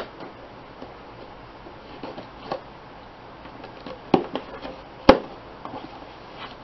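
A cardboard shipping box being opened and its packing handled by hand: scattered light rustles and taps, with two sharp snaps about four and five seconds in.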